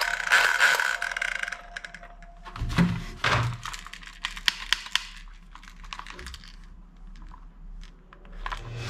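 Plastic toy pistols being handled over a cardboard box: scattered light clicks and knocks of hard plastic, with a couple of duller thumps about three seconds in.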